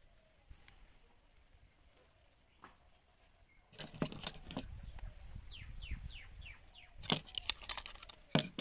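Close rustling, knocks and low rumble near the microphone, with several sharp clicks in the second half. About five to six seconds in, a bird gives a quick run of about six falling whistled notes.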